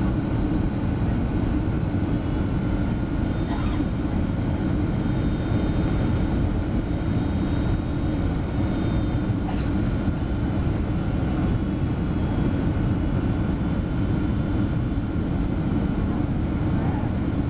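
Boeing 757-200 airliner heard from inside the passenger cabin: a steady, loud rumble of engine and airflow noise that stays even throughout, with a faint steady whine above it.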